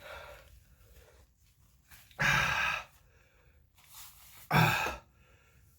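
A man breathing hard through his mouth, two loud heavy breaths a couple of seconds apart with fainter breathing between, from the burn of a super-hot pepper.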